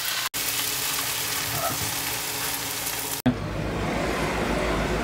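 Collard greens sizzling as they fry in a pan, with a brief break about a third of a second in. A little over three seconds in the sizzle cuts off and a steady low rumble takes over.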